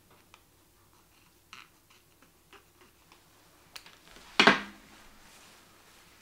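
Small scissors cutting a thin sheet of plastic (Edge Bright fly-tying material): a few light clicks and handling sounds, then one much louder, sudden snip and crackle of the sheet about four and a half seconds in.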